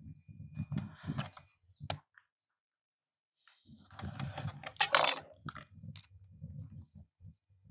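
Chef's knife cutting and scraping through a small reef fish (yellow-eye kole) on a plastic cutting board, the blade crackling through scaly skin along the backbone. A louder scrape of the knife against the board comes about five seconds in.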